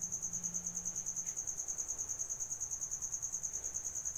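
A steady high-pitched trill, pulsing evenly about a dozen times a second, heard without pause.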